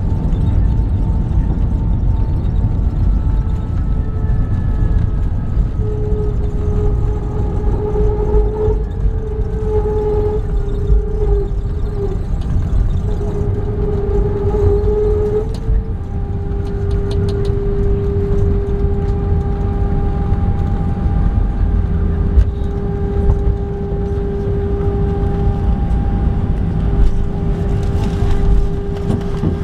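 Airbus A320 on its landing rollout, heard from inside the cabin: a loud, steady low rumble of the engines and the wheels on the runway, with steady engine whines that shift slightly in pitch about 6 and 16 seconds in as the aircraft slows.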